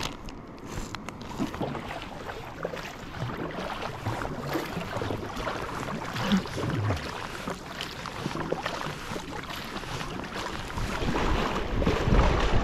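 Kayak paddle strokes dipping and splashing, with water sloshing around the hull. A low wind rumble on the microphone grows louder near the end.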